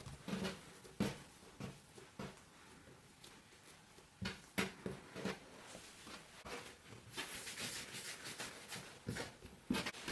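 Kitchen food-preparation handling sounds: scattered soft knocks and taps, with a few seconds of rustling near the end.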